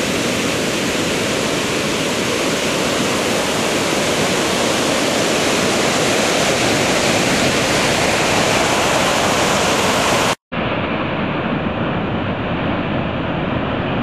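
Heavy ocean surf: big waves breaking and whitewash rushing up the sand, a steady, dense wash of noise. About ten seconds in it cuts out for a moment and resumes as a duller-sounding recording of breaking surf.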